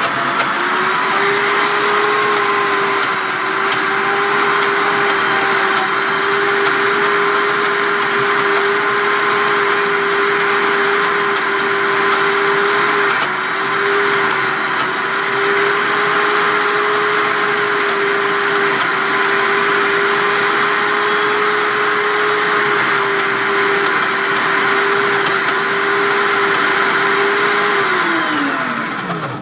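Optimum G2.1 high-speed blender motor running on speed 6, grinding roasted almonds into almond butter: a loud, steady whine over a whirr that spins up in the first second and winds down near the end as the blender stops.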